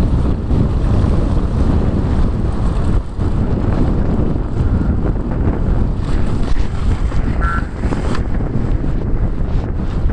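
Wind buffeting the microphone: a loud, steady, rumbling noise, with a brief high tone about three-quarters of the way through.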